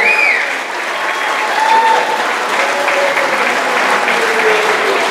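Crowd applauding and cheering, with shouts and whoops over the clapping.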